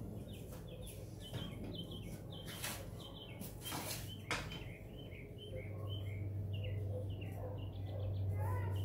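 Small birds chirping over and over in short repeated notes. A couple of sharp knocks come near the middle, as a long metal level is laid on the granite countertop. A low steady hum grows louder in the second half.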